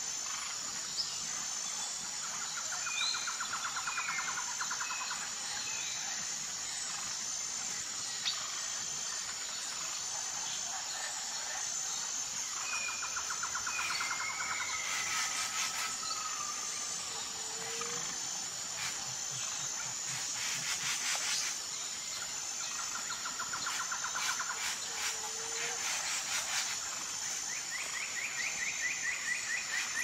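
Tropical forest ambience: a steady, high insect drone, with scattered short bird whistles and chirps and several rapid trills lasting a second or two each. Bursts of quick clicking come midway.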